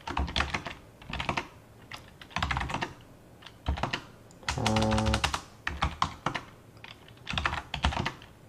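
Typing on a computer keyboard: quick bursts of keystrokes with short pauses between them, typing out a terminal command.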